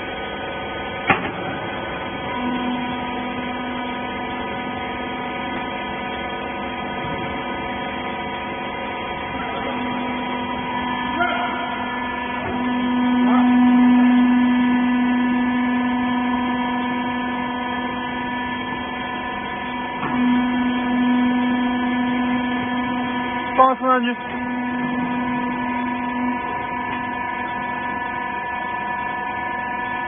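Hydraulic rag baler's power unit (electric motor and hydraulic pump) running with a steady hum, swelling louder for a few seconds midway. There are a few short knocks, about a second in and again near the last quarter.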